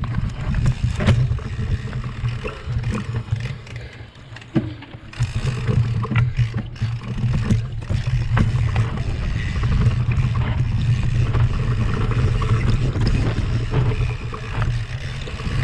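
Mountain bike ridden over a rough off-road trail: a steady low rumble with many sharp rattles and knocks from the bike over the bumps, briefly quieter about four seconds in.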